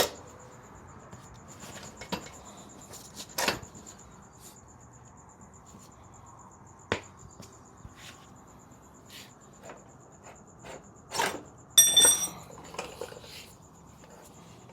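Scattered metal taps and knocks as the rear axle bolt is driven through the wheel hub with a small hammer, with a louder cluster of ringing metal clanks near the end.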